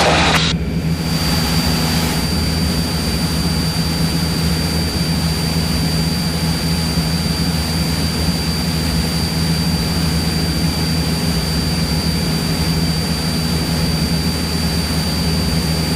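Cessna 172's piston engine and propeller droning steadily in cruise, heard from inside the cabin, with a thin steady high whine above it.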